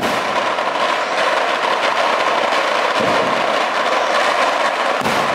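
Fireworks display: a dense, steady crackling from many fireworks going off at once, with no single bang standing out.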